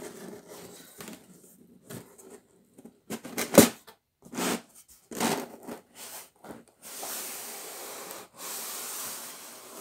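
Hands handling a sheet of corrugated cardboard: scattered knocks and scrapes, one sharp loud knock about three and a half seconds in, then two long rubbing noises near the end as the cardboard is pressed and slid into place.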